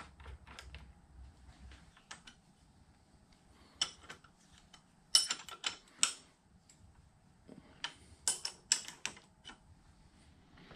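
Light metallic clicks and clinks of a wrench on the T-bolt nuts that hold a Bridgeport milling machine's head to its ram adapter, as the nuts are run on and tightened. A quick run of soft clicks comes first, then scattered groups of sharper clinks.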